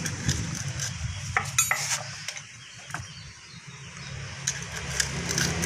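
Scattered metallic clinks and clicks as a piston ring compressor is handled and fitted around an engine piston and its rings.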